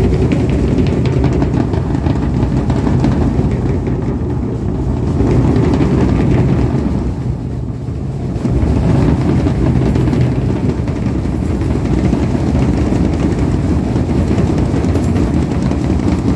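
Marching drum band playing loud, as a dense wall of drums and band sound.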